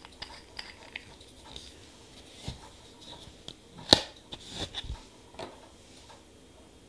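Light clicks, taps and brief scraping of nail-stamping tools, a scraper and a clear stamper, worked on a metal stamping plate, with one sharper click about four seconds in.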